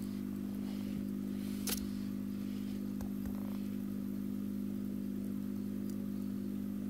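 Steady low machine hum with a sharp click about a second and a half in and a fainter tick a little later.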